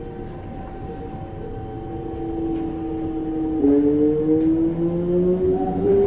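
Mitsubishi GTO-VVVF inverter of a Toei 5300 series train whining as the train accelerates, heard from inside the car. About three and a half seconds in, the tones jump to a new set of notes that climb steadily and grow louder.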